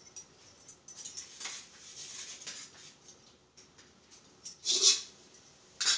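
Steel kitchen utensils being handled: a spoon scraping and knocking against steel plates, with two louder brief clatters about five and six seconds in.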